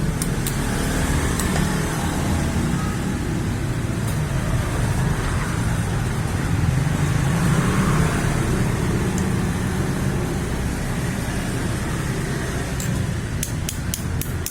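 Steady low rumble of passing road traffic, with a quick run of clicks near the end.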